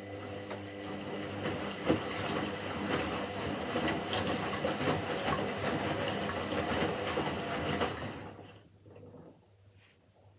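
Washing machine drum turning with a dense clattering rattle over a steady motor hum for about eight seconds, then slowing and stopping about eight seconds in. It is a short run of the drum that stops, not a sustained full-speed spin.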